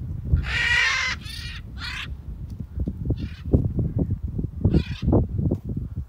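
Free-flying large parrots squawking harshly in flight: a cluster of calls in the first two seconds, then single calls about three and five seconds in. Wind rumbles on the microphone underneath.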